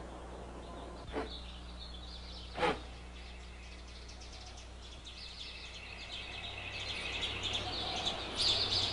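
Low steady hum with two brief knocks in the first few seconds, then rapid high-pitched chirping that starts about halfway through and builds toward the end.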